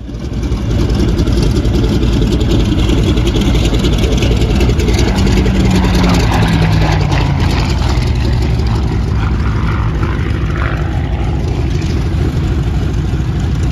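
Piston warbird engine running loudly on an airfield, with the big radial engine of a P-47 Thunderbolt in view. It starts abruptly, and partway through a passing engine note falls in pitch.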